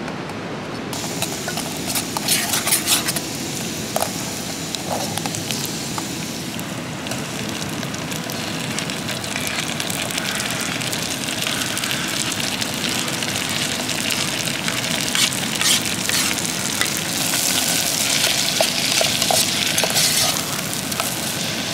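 Chopped onions, tomatoes and green chillies sizzling in oil in a camping pot on a portable gas stove. The sizzle thickens about a second in, and a spoon stirring scrapes and clicks against the pot now and then.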